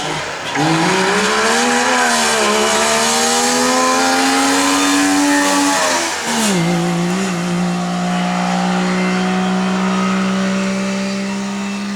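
Wartburg 353W rally car's two-stroke three-cylinder engine under hard acceleration: the pitch climbs for about six seconds, dips sharply, then holds high and nearly steady.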